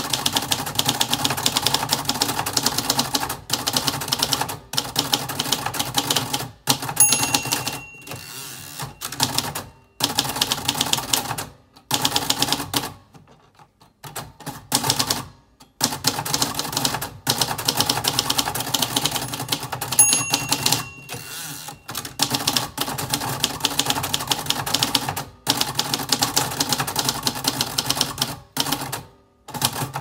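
Fast typing on a 1975 Royal Custom III manual portable typewriter: typebars striking the platen in rapid runs of clicks with short pauses between them. The margin bell rings twice, about seven and twenty seconds in, signalling that the end of the line is near.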